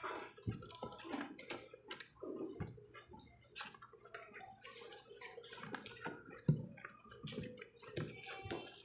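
Irregular small clicks, taps and rustles from a two-week-old pug puppy being handled in the hand with a tissue, with a few louder soft thumps.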